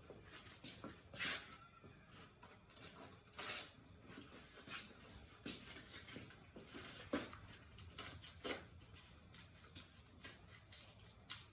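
Faint, scattered rustling and small clicks and knocks of hand work, as a fresh strip of sandpaper is fetched and handled.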